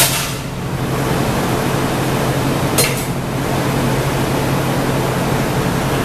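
Steady roar of a glassblowing hot shop's gas-fired glory hole and furnaces together with the studio fans: an even hiss over a constant low hum. A short burst of hiss sits at the start and another about three seconds in.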